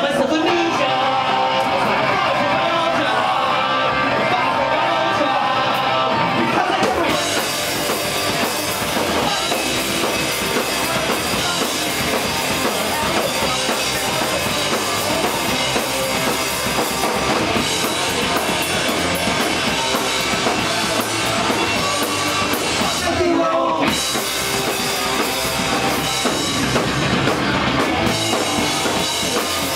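Live pop-punk band playing loud, with distorted electric guitars and a drum kit. The sound fills out with cymbals about seven seconds in, and there is a brief break around twenty-three seconds before the full band carries on.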